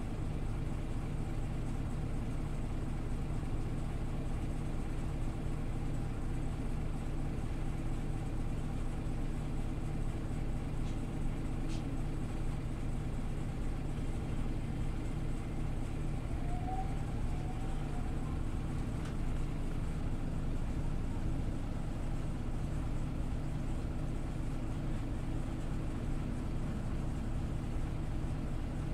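Scania OmniLink CL94UB city bus engine idling steadily, a constant low hum that holds the same pitch throughout. A faint short double squeak comes a little past halfway.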